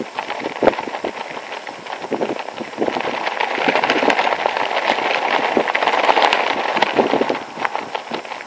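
Loose synthetic windbreaker jacket and pants flapping in the wind, a rapid crackling flutter of fabric. It grows louder about three seconds in and eases off near the end.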